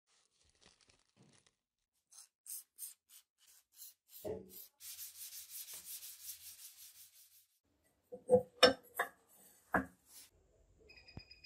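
A gloved hand rubs or sands a rusty steel knife blade resting on a wooden block, in a run of quick back-and-forth scraping strokes. A few sharp knocks come near the end and are the loudest sounds.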